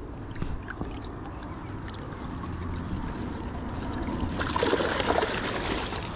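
Wet fishing keepnet being hauled in, water running and dripping through the mesh, louder from about four seconds in.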